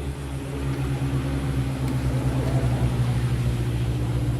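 An engine or motor running steadily with a low, even hum, growing a little louder.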